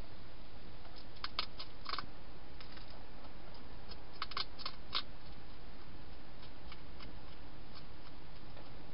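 A hedgehog crunching dry food: two short clusters of sharp clicks, about a second in and again about four seconds in, over a steady hiss.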